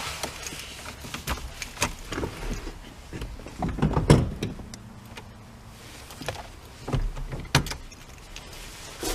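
Scattered clicks and knocks of a quick-release steering wheel and hub being handled in a car, the loudest knock about four seconds in. A faint steady hum runs for a couple of seconds in the middle.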